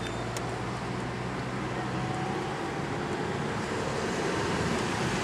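Car engine and tyre noise heard from inside the cabin while driving: a steady low hum with road rush that grows slowly louder.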